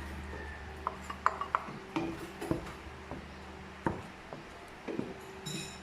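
A cooking utensil knocking and scraping against a pan while stirring: irregular light clicks and clacks over a steady low hum.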